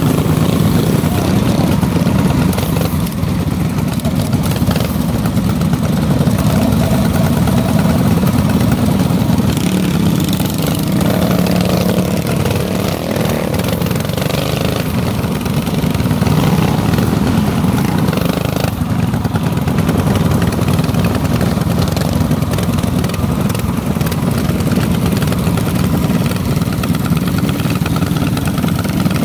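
Minibike engine running steadily, with little change in level.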